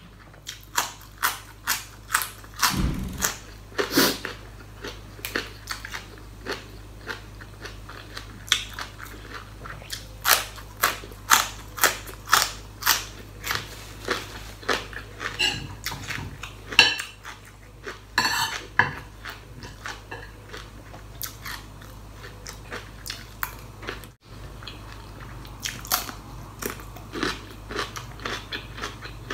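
Crisp raw vegetables, including fresh cucumber, bitten and chewed close to the mouth: loud crunches about two a second. They ease to softer chewing about two-thirds of the way through, then the crunching picks up again near the end.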